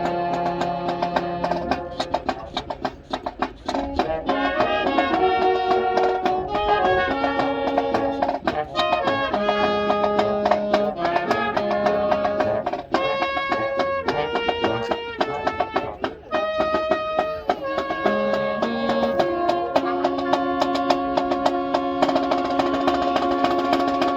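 High school marching band with brass and percussion playing the close of its field show, with moving chords over drum and percussion hits. It ends on a long, full held chord that cuts off sharply at the very end.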